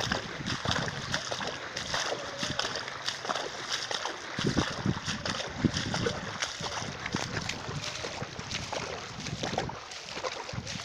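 Floodwater splashing and sloshing in an uneven, continuous churn.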